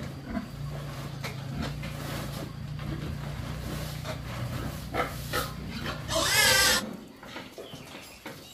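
Pigs grunting in a pen, with one loud squeal lasting under a second about six seconds in.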